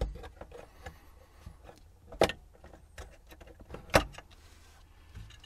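Hands handling plastic parts and wiring at a solar charge controller: small clicks and rustles, with two sharp snaps about a second and a half apart.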